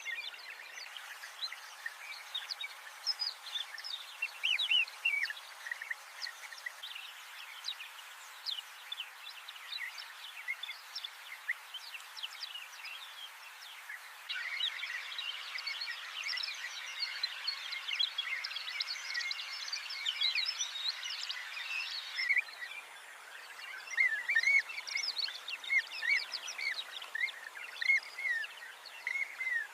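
A chorus of birds chirping and twittering, many short overlapping calls with no single voice standing out, growing busier about halfway through.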